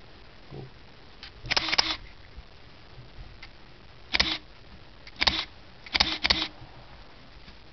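Contax G2 rangefinder camera's shutter being fired several times, each release a short mechanical burst of shutter and motorized film advance. There is one burst about a second and a half in, single ones at about four and five seconds, and two in quick succession around six seconds.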